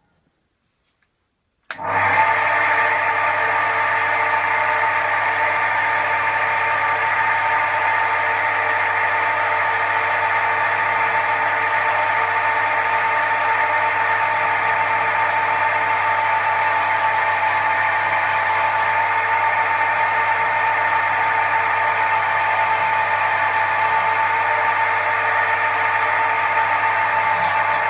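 Record wood lathe running steadily, a constant hum with a high whine over it, starting abruptly about two seconds in.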